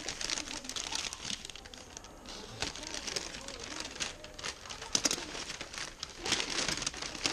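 Brown paper wrapping being unfolded and pulled open by hand, crinkling and rustling continuously with many sharp crackles.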